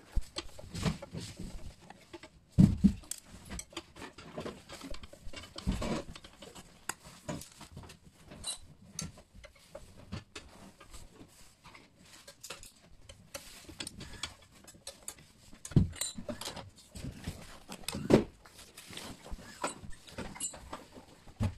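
Handling of a small steel gun safe's lid and hinges during disassembly: irregular knocks, clicks and rattles of metal and plastic parts, with a few sharper thumps about 3 s in, around 6 s, and near 16 and 18 s.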